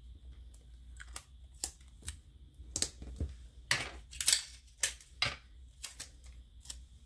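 Irregular light clicks and taps from hands working a nylon-cord macrame bracelet strung with glass beads on a tabletop. The clicks come a dozen or so times, unevenly spaced, and are loudest a little past halfway.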